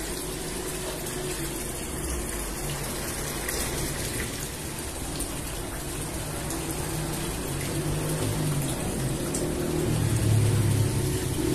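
Water pouring in a thin stream into the stainless steel bowl of a spiral dough mixer, splashing into the water already pooled there as the bowl fills. A low hum grows louder near the end.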